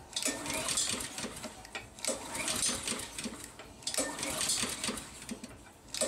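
Honda push mower's OHV engine cranked by its recoil pull-cord starter three times, about every two seconds, spinning over without firing, with a fourth pull starting at the end. With spark and air confirmed, the owner takes the failure to start for a fuel problem.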